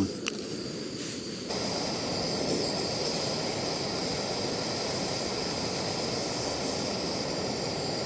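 Optimus Soloist canister gas stove burning under a kettle, a steady jet-like hiss of the burner flame that grows louder about a second and a half in and then holds even.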